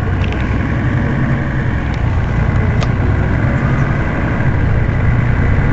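Mercedes-Benz Citaro city bus engine idling steadily with a low drone while the bus stands at a stop. A faint short click comes about three seconds in.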